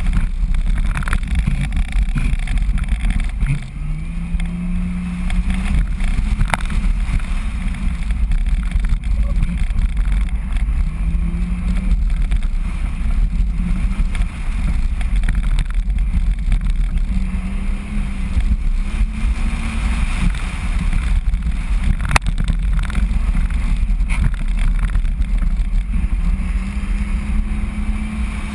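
Rally car driving fast on a gravel road: the engine revs up again and again, over a constant rumble of tyres on loose gravel and wind on the outside-mounted microphone. A few sharp clicks stand out.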